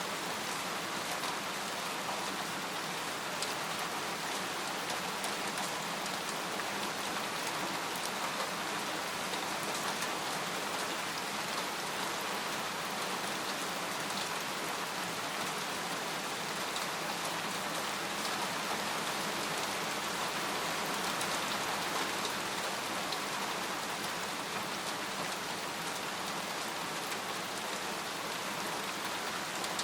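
Steady rain falling on a tent, its drops pattering as many fine, close-packed ticks over an even hiss.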